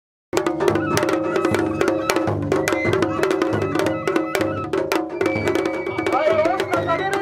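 Festival float music (matsuri bayashi): drums beaten in a quick, even rhythm with sustained pitched melody tones over them. It starts abruptly about a third of a second in, after a silent gap.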